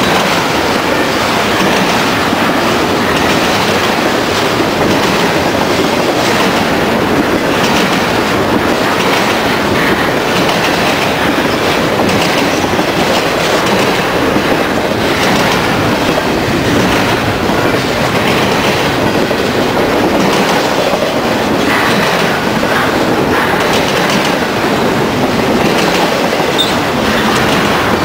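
A BNSF double-stack container train rolls past at close range. The steel wheels of its well cars make a loud, steady rolling noise, with clacks over the rail joints.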